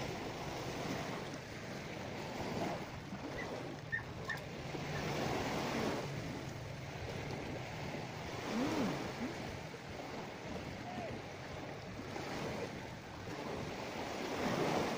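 Sea surf washing in and out, its hiss swelling and falling back several times.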